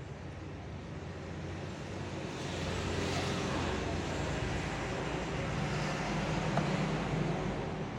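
Background road traffic with a steady low engine hum that swells about two and a half seconds in, as a vehicle passes, and eases off near the end.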